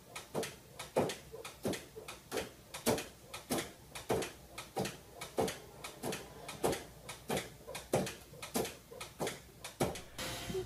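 Cat batting a pet-door flap with its paw, making the flap knock against its frame over and over, about two knocks a second.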